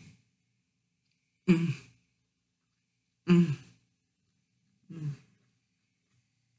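A woman's short voiced sighs, each falling in pitch, three in a row about a second and a half apart, the last one softer.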